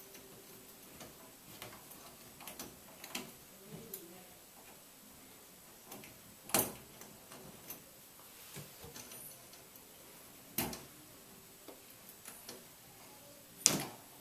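Scattered sharp metal clicks and taps as the retaining clip is worked into a Moen shower cartridge's valve body, with a few louder clicks, the loudest near the end.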